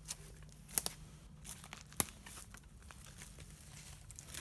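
Footsteps through woodland undergrowth, dry leaf litter crunching and rustling, with a few sharp twig snaps: two close together just under a second in and the loudest one about two seconds in.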